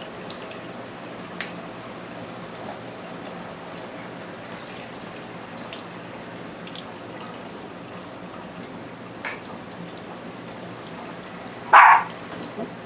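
Kitchen faucet running steadily, its stream splashing over bee balm leaves and stems being rinsed by hand. One short, loud sound near the end.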